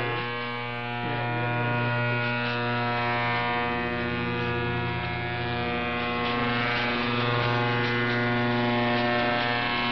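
Loud, steady buzz on the 11935 kHz shortwave channel, played through a Qodosen SR-286 portable radio's speaker in AM mode, with faint Arabic talk from Republic of Yemen Radio underneath. The buzz is a signal covering the station, which the listener takes for a deliberate jammer rather than a faulty transmitter.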